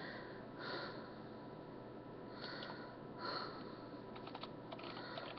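Faint breathing through the nose over a low steady hiss, then from about four seconds in a run of light clicks at a computer as the song is searched for.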